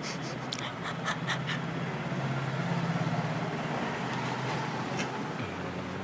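Soldering iron tip and wire scratching against the metal outer pole of a male aux jack as the shield (ground) wire is soldered on: a quick run of light clicks in the first second and a half and one more about five seconds in, over a steady low hum.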